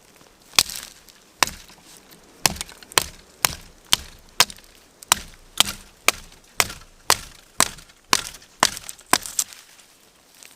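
Wood being chopped: a steady run of about sixteen sharp strikes, roughly two a second.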